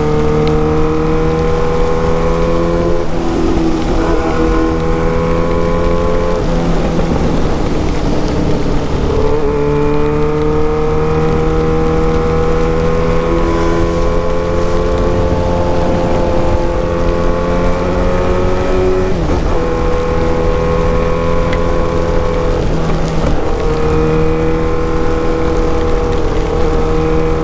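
Yamaha XJ6's 600 cc inline-four running through an open, muffler-less exhaust while riding. The engine note climbs slowly and drops sharply at each of about five gear changes. A steady hiss of rain and wind sits underneath.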